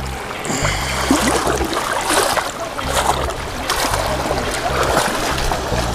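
Background music with a steady bass line over water sloshing and splashing around someone wading in shallow water.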